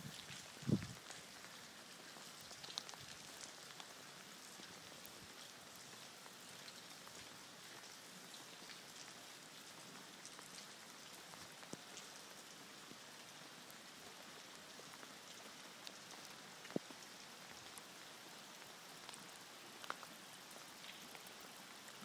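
Faint steady rain pattering on floodwater covering a street, with scattered louder drips. A dull thump sounds about a second in.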